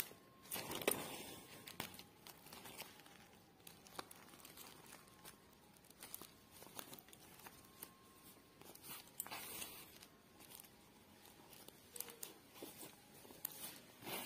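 Faint rustling and crinkling of a woven plastic sack as a needle and yarn are pulled through it, with scattered soft clicks and a few short swishes of the yarn drawing through.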